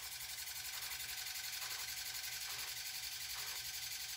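A steady low machine hum with a rapid regular pulse, and a fainter whir that swells and fades about once a second.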